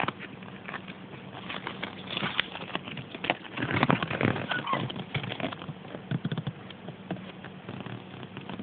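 Folded paper collector's leaflet being unfolded and handled, crinkling and rustling in a run of small crackles that is busiest in the middle.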